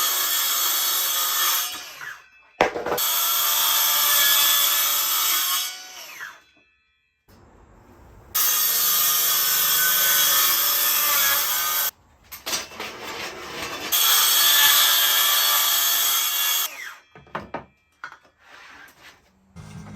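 Power saw cutting board in four long runs of a few seconds each, with short breaks between cuts and a few light knocks near the end.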